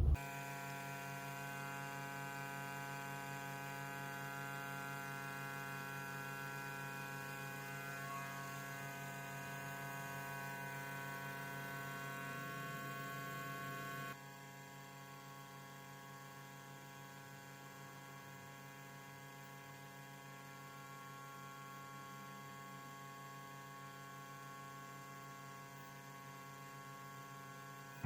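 Steady electrical-sounding hum made of many held tones, dropping noticeably in level about halfway through.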